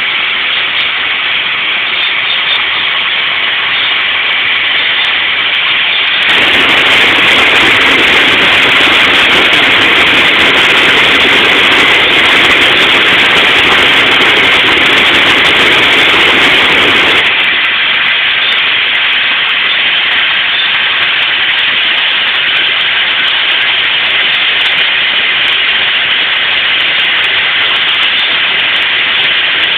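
Fire hose nozzles spraying high-pressure water streams, a loud steady hiss over the running fire engine's pump. The spray gets louder about six seconds in and drops back about eleven seconds later.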